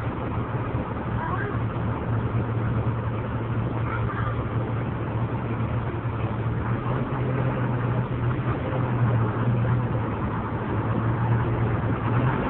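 Vehicle engine running with a steady low hum under road and traffic noise, getting a little louder in the last few seconds as the vehicle gets under way.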